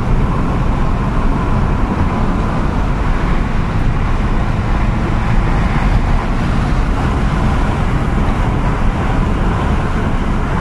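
Steady road and wind noise of a car driving along, heard from inside the cabin, with wind buffeting the microphone as a loud low rumble.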